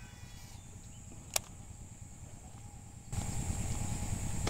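Faint steady high-pitched insect buzz, broken by a single sharp click about one and a half seconds in; about three seconds in, a low rumbling noise starts suddenly and continues.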